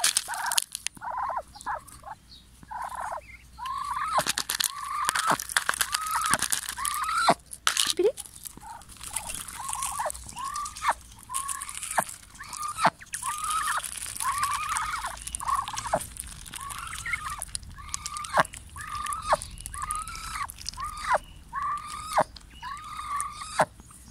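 Muscovy ducks making short, arched calls, one to two a second, while pecking corn kernels from a hand, with sharp taps of their bills among the calls.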